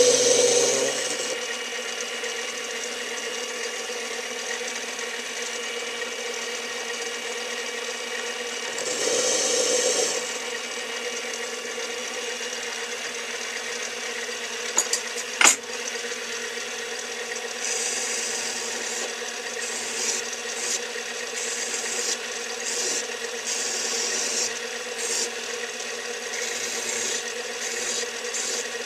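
Small metal lathe running with a steady motor whine while a chamfer is cut on the end of a spinning part, the cutting heard as scratchy, irregular scraping that comes in short spells, more often in the second half. One sharp click about halfway through.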